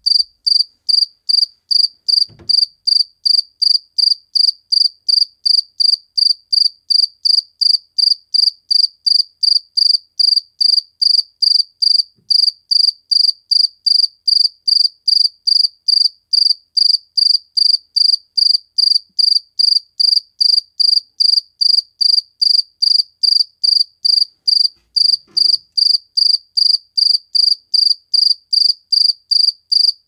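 Male cricket stridulating, rubbing its raised forewings together. It makes a clear high-pitched chirp repeated evenly about three times a second.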